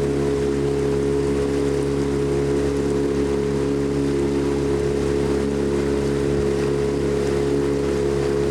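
Boat motor running at a steady speed, with a constant engine hum.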